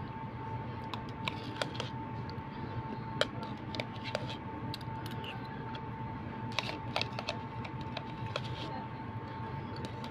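A metal spoon clicking and scraping against a thin plastic cup, mixed with chewing and mouth sounds as someone eats fruit salad from it. The small clicks come at irregular intervals over a steady faint hum.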